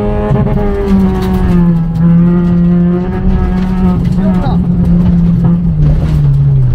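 A single race car engine held at high revs, its pitch dipping as the revs drop and then climbing back, twice; a steady, loud engine drone.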